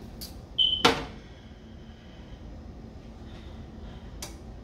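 Kitchen handling noises: a light click, then a short high-pitched squeak and a sharp knock about a second in, and another click near the end.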